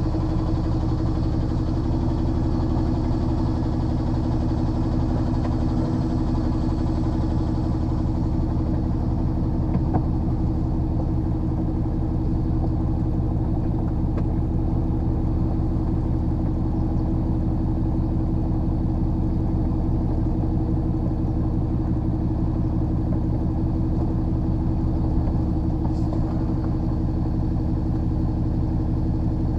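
Lorry's diesel engine running steadily at low revs, heard from inside the cab.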